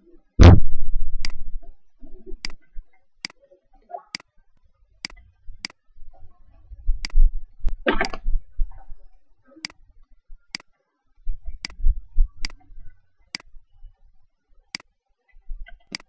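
A run of small, sharp clicks, about one a second and not quite evenly spaced. A heavy thump about half a second in is the loudest sound.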